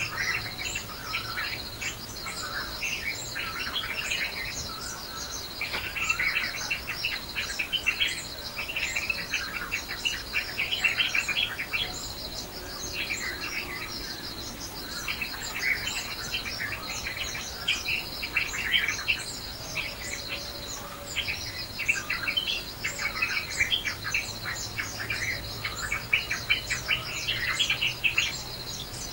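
Many birds chirping and twittering without a break, over a steady high insect trill.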